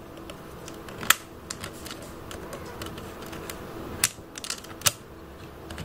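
Sparse light clicks and ticks of a thin hand tool poking among the parts inside the opened plastic case of a radio-control transmitter. The sharpest clicks come about a second in and again near four and five seconds in, over a faint steady hum.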